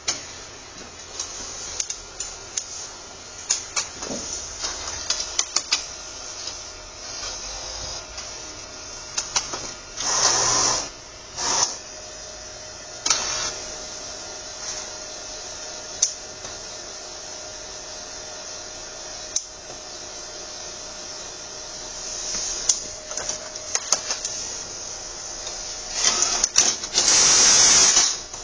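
HP DesignJet 130nr wide-format inkjet printer running its start-up checks with no paper loaded: its carriage mechanism gives off a run of clicks and clunks. Louder motor whirring comes about ten seconds in and again near the end. The owner hears the printhead carriage jamming at the far left with a very loud clunking noise, a fault he has not yet diagnosed.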